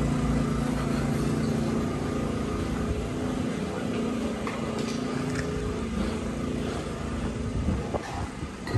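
A motor engine running with a steady hum that fades over the first couple of seconds, leaving steady street noise with a few faint clicks.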